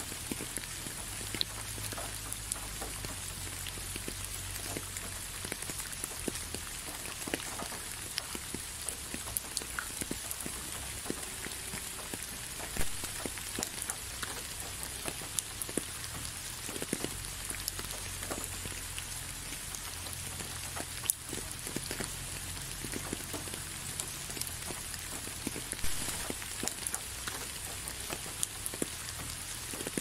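Steady rain falling, with many separate drops landing close by. A few drop hits stand out louder, about 13, 21 and 26 seconds in.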